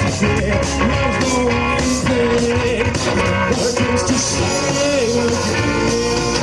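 Rock band playing live: drums and electric guitars, with a held, wavering lead line.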